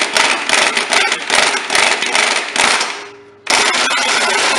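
Snap-on impact wrench hammering the blade-clutch bolt home on a Honda HRC216 mower: a long burst of rapid hammering that dies away about three seconds in, then a second burst that starts abruptly half a second later.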